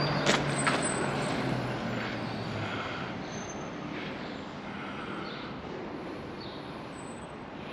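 A motor vehicle passing on a nearby road, its engine hum and tyre rush fading away over the first few seconds, then a steady low rush of traffic noise.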